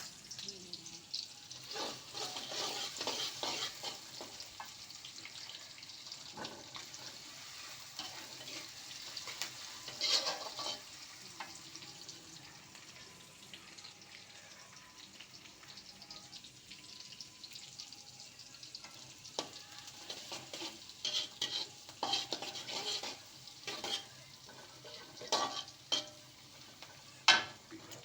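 Food sizzling in hot oil in a pan while a spatula stirs and scrapes it. Now and then the spatula knocks sharply against the pan, clustered in the second half and loudest near the end.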